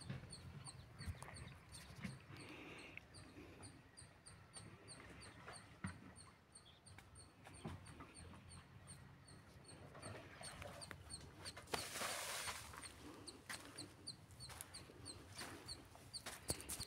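A small creature's high, short chirp repeated evenly about three times a second, with faint scattered knocks and a brief rustling hiss about twelve seconds in.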